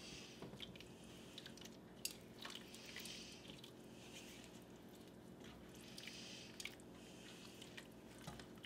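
Faint wet squishing and scraping of a silicone spatula stirring a saucy stir-fry in a sauté pan. It comes in a few separate strokes, with light clicks of the spatula against the pan.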